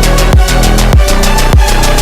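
Loud electronic music: a deep kick drum that drops in pitch about every 0.6 seconds, with fast ticking hi-hats above it.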